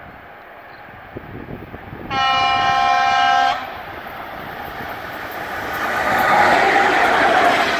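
ChS7 electric locomotive's horn sounding one steady blast of about a second and a half, then the rushing noise of the train approaching at speed, growing steadily louder.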